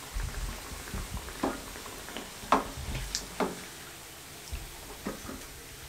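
Quiet room tone with a handful of faint, short clicks and taps scattered through it.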